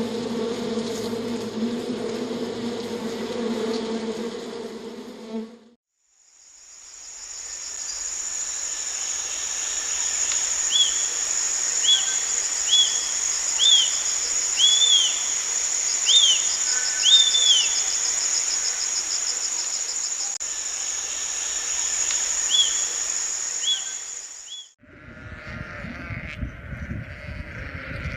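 Insect sounds: first a steady low wingbeat buzz, as of a bee or fly, for about five seconds. After a brief gap comes a long, high, steady insect shrill, with short repeated chirps over it in the middle. A different, noisier sound cuts in near the end.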